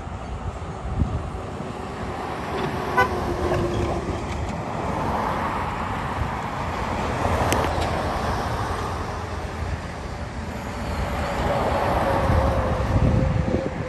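Outdoor traffic noise with a steady low rumble. There is a short horn-like toot about three seconds in, and a longer, slowly falling horn-like tone near the end.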